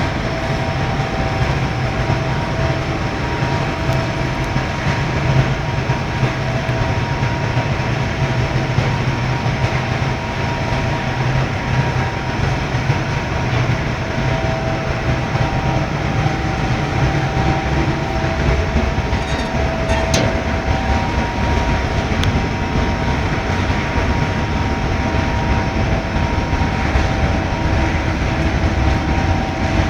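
Furnace running steadily: a constant low rumble with a faint steady hum of several tones above it.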